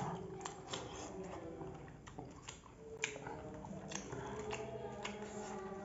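Eating by hand: faint, irregular clicks and smacks of chewing and of fingers mixing curry and rice against a steel plate.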